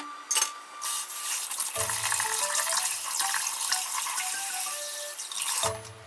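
Kitchen tap running steadily into the sink for about five seconds, then shut off abruptly near the end; a sharp knock comes about half a second in. Background music plays underneath.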